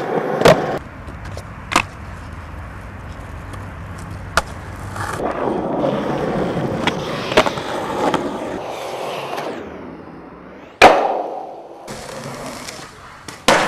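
Skateboard wheels rolling over concrete, broken by several sharp cracks of the board popping and landing, the loudest one near the end.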